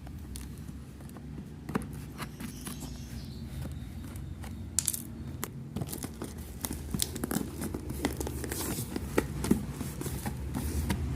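Cardboard parcel being cut and opened with a knife: irregular clicks, scrapes and short tearing of tape and cardboard, busier from about four seconds in.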